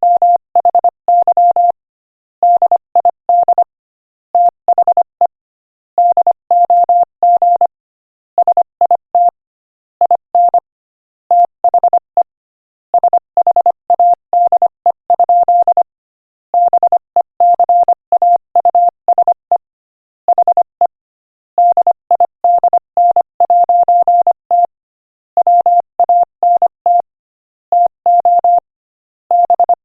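Morse code sent at 25 words per minute as a single steady beep tone, keyed on and off in short and long pulses with gaps between letters and words, spelling out a joke.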